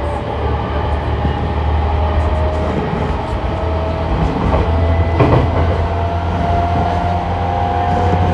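JR E217 series electric train heard from inside the car, running and gathering speed: the traction motor whine climbs slowly in pitch over a steady rumble of wheels on rail. There is a single knock about five seconds in.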